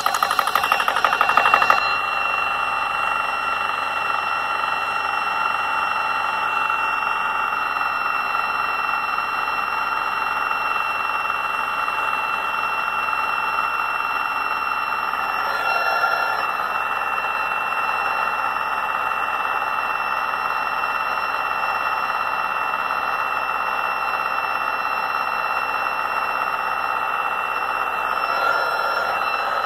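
Portable 12-volt high-pressure PCP compressor running, filling an air rifle's cylinder toward 250 bar, with the fast chugging of its piston. About two seconds in, the recording is sped up tenfold, and the chugging becomes a steady high-pitched whine.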